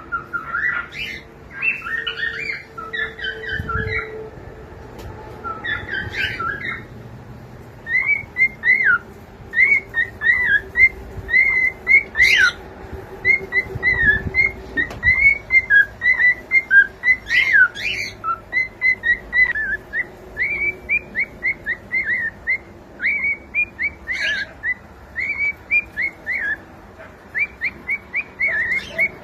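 Cockatiel whistling and chirping: a warbling phrase in the first few seconds, then a long run of short, quick chirps repeated several times a second.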